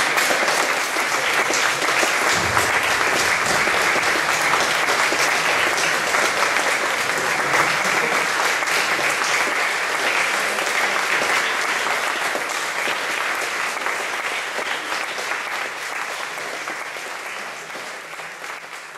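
Audience applauding steadily, the sound slowly fading away over the last several seconds.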